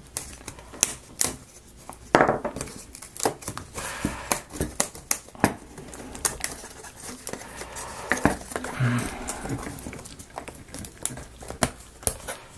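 Laser-cut plywood gears being pressed out of their sheet by hand: a run of small, irregular wooden snaps and clicks.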